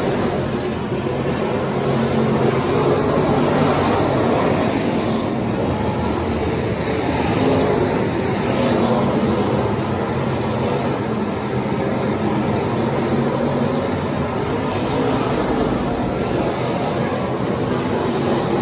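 A pack of Pure/Factory Stock dirt-track race cars running together at racing speed, several engines at once making a steady, layered engine sound with no break.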